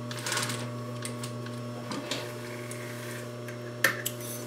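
Sewing machine stitching briefly at the start as it bastes through thick twist cord trim, then a steady electrical hum under a few scattered clicks, with one sharp click near the end.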